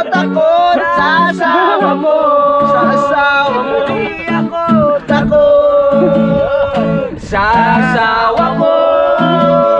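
A man singing a song to a strummed acoustic guitar, the chords struck in a steady rhythm under the voice.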